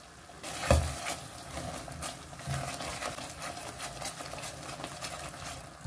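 Metal spoon stirring spice masala in a kadai, scraping and clattering irregularly against the pan, starting about half a second in.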